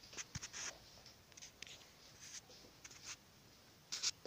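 Faint handling noise from a phone and a small hand-held flashlight being moved about: scattered soft rustles and a few small clicks.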